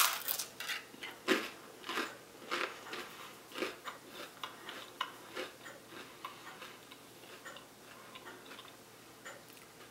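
Crunchy chewing of toast: a loud bite at the start, then short crunches about every half second that grow gradually fainter.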